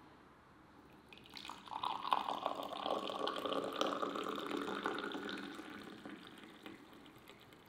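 Tea poured from a teapot into a small tulip-shaped tea glass: a splashing stream that starts about a second in, runs steadily, and tapers off near the end.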